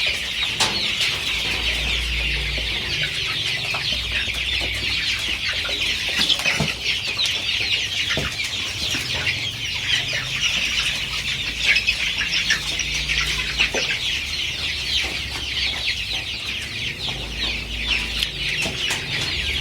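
A large flock of chickens in a coop, a continuous dense din of many overlapping high-pitched peeps and clucks.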